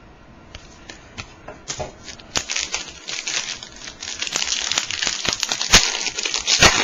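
Foil trading-card pack being torn open and crinkled, a few sparse crackles at first, then continuous crinkling from about two seconds in with a couple of sharper snaps near the end.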